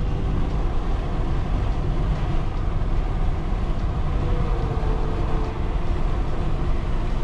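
Car driving on the road: a steady low rumble of road and engine noise with a faint droning tone.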